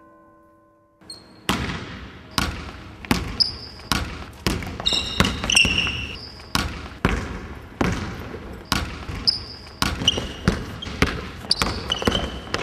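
A basketball being dribbled on a wooden gym floor, bounces about two a second starting about a second and a half in, echoing in the hall, with short high sneaker squeaks between them.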